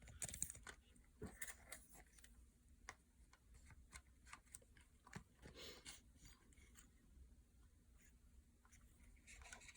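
Faint, scattered small clicks and taps from handling the plastic parts and screws of a drone arm by hand.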